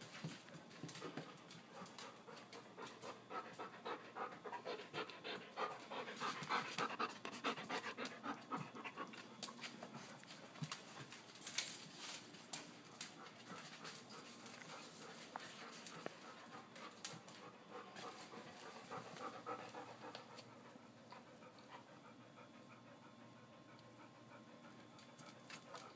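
A dog panting in quick, even breaths, heaviest in the first half and tapering off over the last few seconds. A single sharp click about halfway through.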